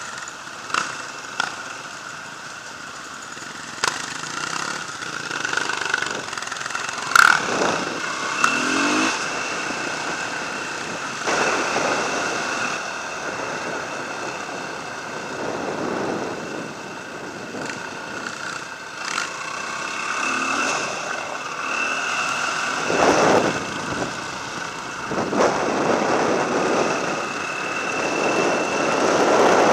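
Dirt bike engine running under way, heard from a camera mounted on the bike, swelling and easing with the throttle every few seconds along with wind and road noise. A few sharp knocks come through, the loudest about seven seconds in.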